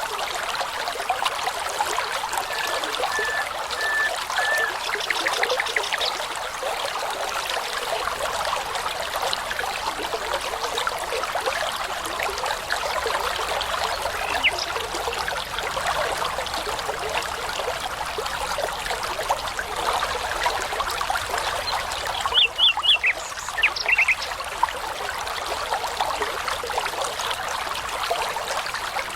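Small brook babbling steadily while songbirds sing over it: a short run of evenly repeated whistled notes a few seconds in, and a louder burst of quick high notes about three quarters of the way through.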